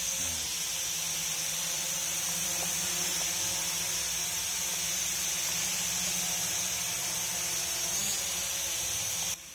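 Toy mini quadcopter drone's small motors and propellers whining at a steady high pitch in flight, lifting slightly about eight seconds in, then cutting off suddenly near the end as the motors stop.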